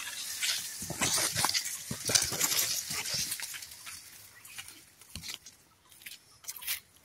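Fodder grass rustling as it is handled, with dense crisp rustles for about the first three and a half seconds, then only faint scattered ones.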